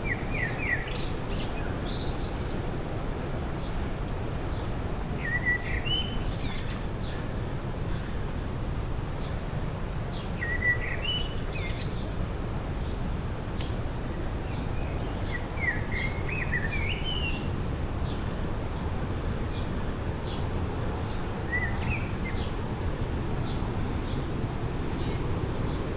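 A bird repeats a short phrase of quick rising chirps about every five seconds over a steady rushing background noise.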